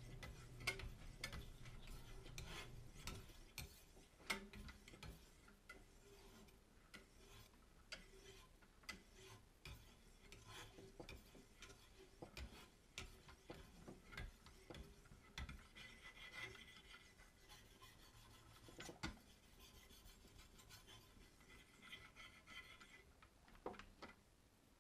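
Ceramic stones of a Wicked Edge guided sharpener stroking along the edge of a carbon steel Sabatier slicer: a faint, repeated rasping scrape with light clicks between strokes.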